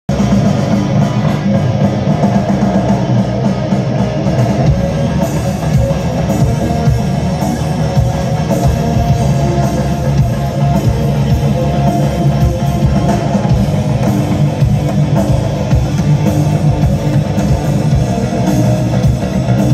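Hard rock band playing live through a concert PA, heard from the audience: distorted electric guitars, bass and a drum kit. Cymbals come in about five seconds in.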